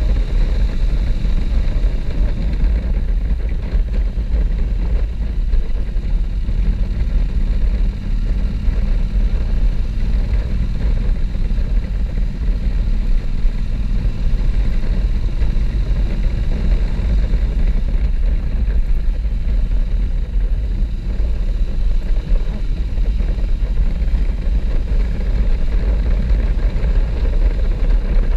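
Wind rushing over the microphone of a camera mounted on a moving motorcycle, with the bike's Honda NC parallel-twin engine running steadily underneath at cruising speed.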